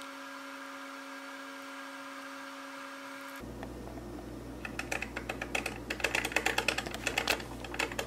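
Mr. Coffee Jr. drip coffee maker heating up. After a steady hum for the first three seconds, rapid crackling and popping starts about four seconds in and grows louder: water beginning to boil and sputter in the heater.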